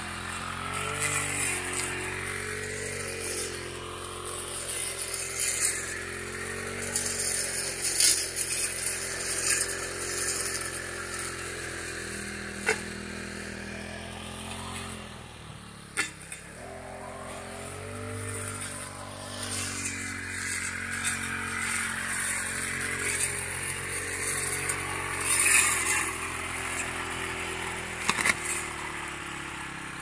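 Petrol brush cutter running while it cuts grass, its engine pitch rising and falling with the throttle. About halfway through it drops almost to idle and then revs back up. Hissy whirring bursts come as the line or blade goes through grass, with a couple of sharp clicks.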